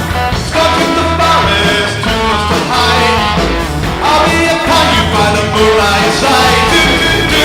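Rock music with singing and a steady bass line.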